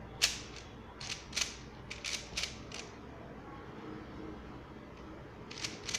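Layers of an X-Man Tornado 3x3 speed cube being turned: quick plastic clacks, about seven in the first three seconds, a pause, then a few more near the end. The cube turns fairly loudly.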